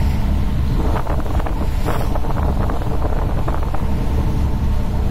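Strong wind buffeting the microphone: a loud, gusting low rumble with scattered short crackles.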